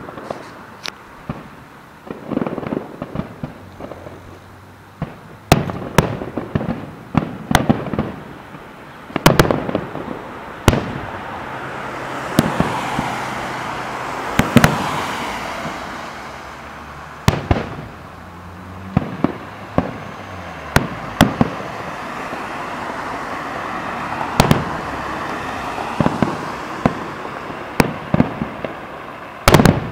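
Aerial fireworks shells bursting at a display: a long run of sharp bangs, some close together, with stretches of noise between the bursts.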